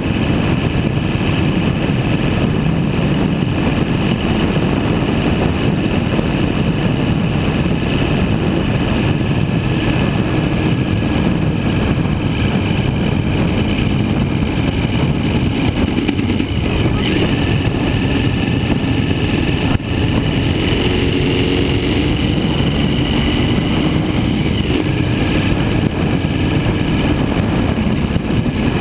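Suzuki V-Strom 1000's V-twin engine running under way on the road, mixed with steady wind rush over the microphone. The engine note stands out a little more clearly about two-thirds of the way in.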